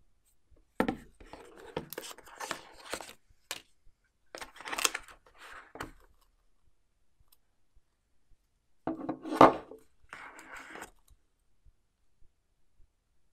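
Hands handling a smartphone box and its contents: rustling and scraping of cardboard, paper and plastic in three short spells, with light clicks. One sharp tap about nine seconds in is the loudest sound.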